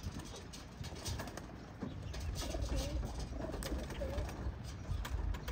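Young racing pigeons cooing at the loft: a few soft, wavering coos in the middle, over a low rumble and scattered light clicks.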